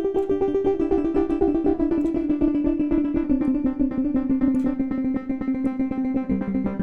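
Software modular synth patch playing short, plucky wavetable-oscillator notes in quick overlapping repeats, making a sustained ambient chord. The chord steps down in pitch twice.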